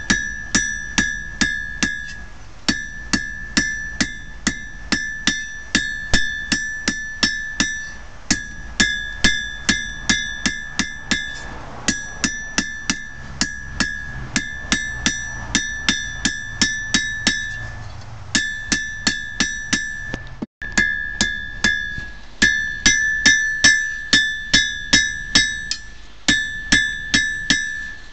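Hand hammer striking hot steel on a 130-pound anvil, the anvil ringing clearly after every blow, about three strikes a second in runs broken by short pauses. The smith is drawing out an old file to forge a fire striker.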